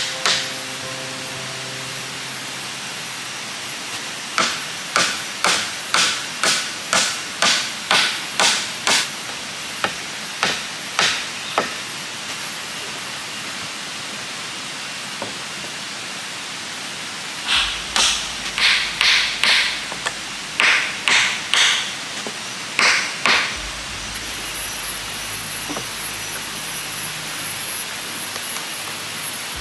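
Hammer driving nails into wooden boards: a run of about ten blows at roughly two a second, a few more, then after a pause a second run of blows, with a steady high-pitched tone underneath.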